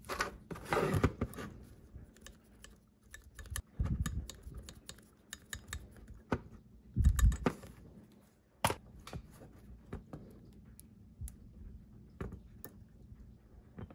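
Scattered light clicks and taps of a model locomotive's plastic-and-metal chassis and motor being handled on a workbench, with a few dull low thumps between them.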